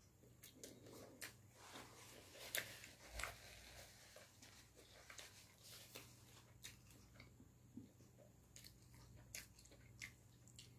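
Faint close-miked eating sounds: a beef, egg and greens wrap being handled and chewed, with soft wet clicks and small crackles, a few louder ones about two to three and a half seconds in.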